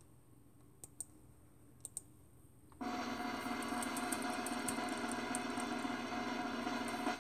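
Two pairs of clicks, then a recorded drum-roll sound effect from a raffle-picker website, played through computer speakers. The roll comes in suddenly about three seconds in, runs steadily for about four seconds, and cuts off sharply.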